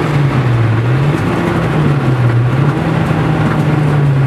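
Nissan 200SX S13's turbocharged CA18DET 1.8-litre four-cylinder, running 27 psi of boost, pulling hard on the road, heard from inside the cabin. Its note holds a steady pitch apart from a couple of small steps, over tyre and road noise.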